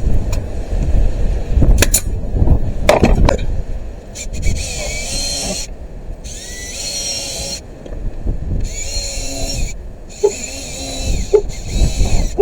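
Power drill driving screws into pallet-wood boards, running in four or five bursts of a second or two each with short pauses between. Knocks and handling noise come in the first few seconds.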